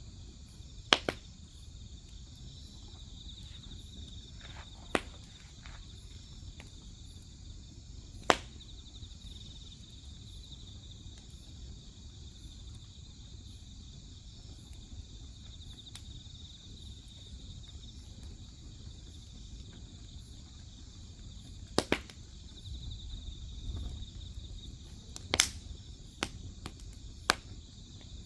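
Crickets chirring steadily in a high, even trill, while burning firewood gives sharp crackles and pops, about eight of them scattered through, the loudest a few in quick succession.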